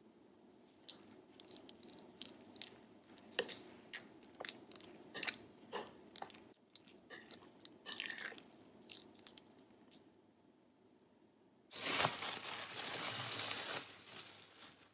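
A metal spoon stirs peanut butter into a thick chili-onion sauce in a ceramic bowl, making irregular wet, sticky squelches and clicks as it scrapes the bowl. Near the end there is a louder, steady rushing noise for about two seconds.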